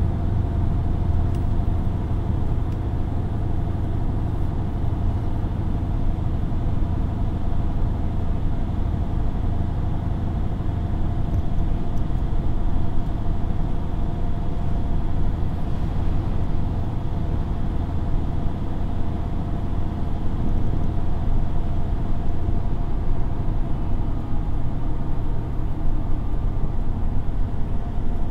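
Steady low road and engine rumble of a moving vehicle, heard from inside, with a faint steady whine over it.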